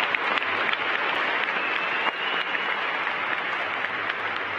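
Audience applauding, many hands clapping at a steady level that eases slightly toward the end.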